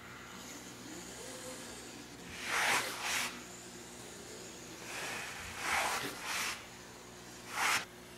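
Pencil strokes scratching across taut, pre-shrunk aircraft fabric while a glue reference line is marked: a pair of short scratchy strokes, another pair a few seconds later, and a single one near the end.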